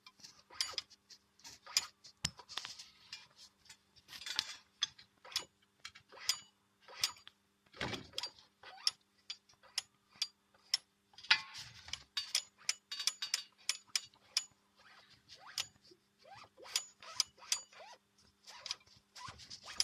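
Sanden car air-conditioning compressor's clutch and pulley knocking: irregular sharp clicks and rattles, several a second, over a steady low hum. The knock comes from the clutch plate's retaining screws, which have loosened and let the clutch develop play.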